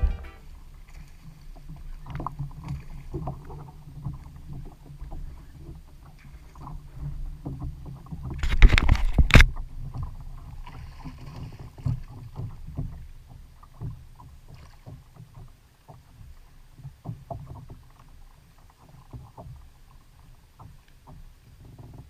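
Water lapping and sloshing against a plastic Hobie Outback fishing kayak's hull, with wind rumbling on the microphone and many small knocks and clicks from the boat and tackle. A loud rush of noise comes about nine seconds in.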